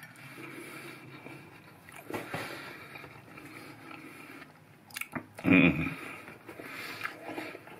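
A person biting into and chewing a lettuce-leaf cup of turkey larb, with heavy breathing through a nose stuffed by a head cold. A few sharp crunches, and a brief louder mouth sound about five and a half seconds in.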